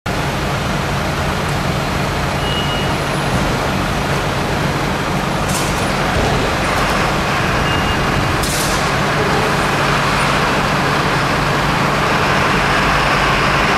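Diesel engines of Mercedes-Benz fire engines idling with a steady low hum. Two short sharp hisses of released air come about five and a half and eight and a half seconds in, typical of truck air brakes. The engine noise grows louder near the end as the appliances get ready to move off.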